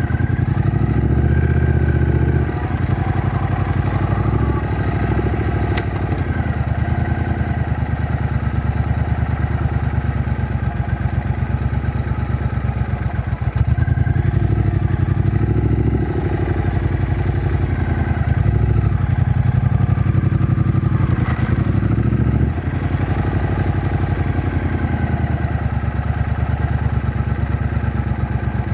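Triumph Bonneville T120's 1200 cc parallel-twin engine running while the bike is ridden. The engine note is continuous and shifts pitch several times as the throttle opens and closes. It drops briefly about two and a half seconds in and again near the end.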